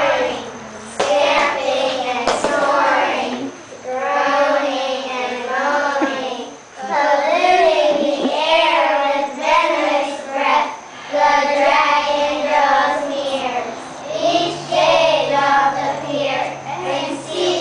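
A group of young children singing a song together in phrases, with short pauses for breath.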